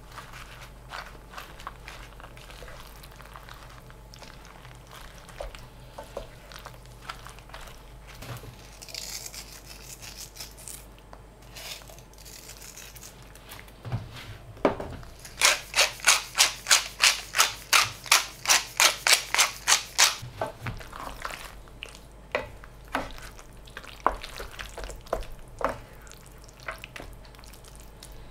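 Risotto cooking in a stainless steel sauté pan, with soft scattered clicks. About fifteen seconds in, a mill grinds seasoning over the pan in a quick run of about sixteen crisp strokes, three or four a second, lasting some four seconds. Afterwards a wooden spoon stirs the thick risotto in the pan.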